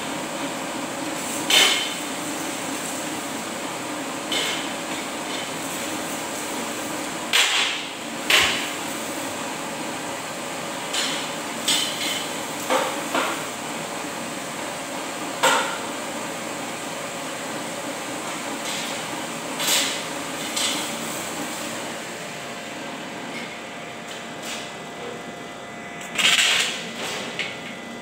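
Hammer striking metal in irregular blows a few seconds apart, with a cluster of louder strikes near the end. Underneath runs the steady hum of an electric stand fan.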